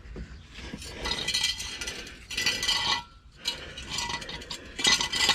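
Metal tools and parts clinking and scraping in several short bursts, the loudest near the end.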